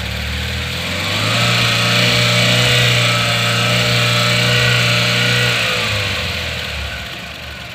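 Tata Ace Gold BS6 engine, running after a coolant refill and air bleed, rising to a raised speed about a second in, holding it steadily, then dropping back toward idle near the end.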